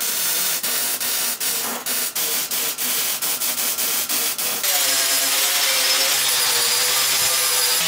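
MIG welder crackling in short stitch welds, stopping and restarting about twice a second, as thin 14-gauge square steel tube is welded dot by dot to avoid burning through. About four and a half seconds in it gives way to an angle grinder steadily grinding the weld smooth.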